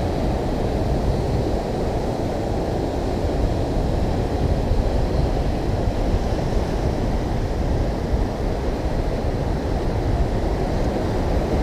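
Ocean surf churning against a rocky shore, a steady rush without breaks, mixed with wind buffeting the microphone.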